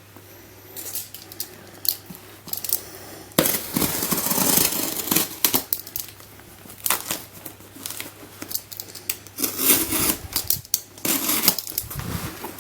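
A parcel being opened by hand: packaging tearing, scraping and rustling, with sharp clicks and knocks as it is handled. The loudest stretch of tearing and rustling comes a few seconds in.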